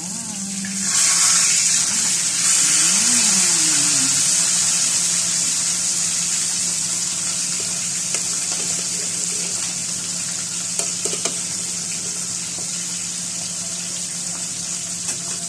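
Whole Zubaidi (silver pomfret) frying in a pan of hot oil: the sizzling jumps loud about a second in as the fish is turned over with tongs, then carries on steadily and slowly eases. A steady low hum runs beneath.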